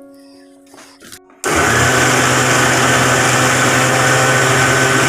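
Electric blender switched on about a second and a half in and running loud and steady at one speed, blending sugar, milk and oil into a batter base.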